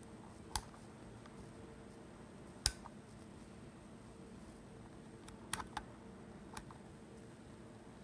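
Sharp small clicks from the power lever and mode dial of an Olympus OM-D E-M5 Mark II camera being worked by finger: two single clicks, then a quick cluster of clicks and one more click.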